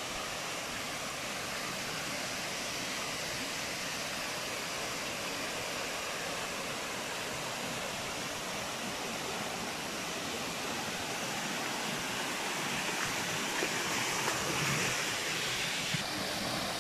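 Steady rush of water tumbling over rocks in a waterfall's stream, growing a little louder near the end.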